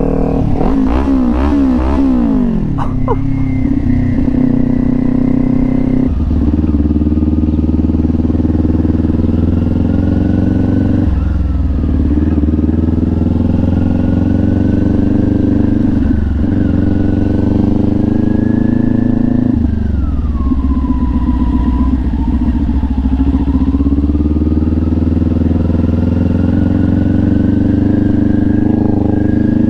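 Kawasaki Ninja 400 parallel-twin engine running through a freshly fitted LeoVince slip-on exhaust. It is revved in quick blips at first, then runs on steadily, its pitch slowly climbing and dropping back a few times.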